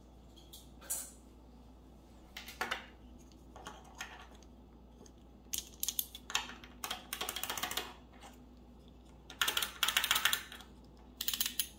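Buckling-spring keyboard switch testers pressed by hand: sharp clicks in short groups, with fast runs of repeated presses in the middle and again near the end.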